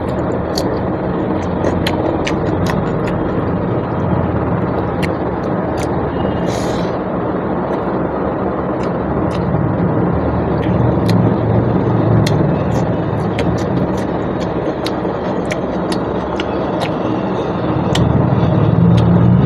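Small eating clicks and smacks scattered through a steady, loud background rumble, with a brief hiss about six seconds in.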